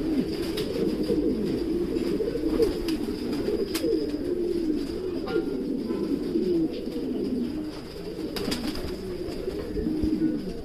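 Several Modena pigeons cooing together, a continuous overlapping chorus of low, rolling coos.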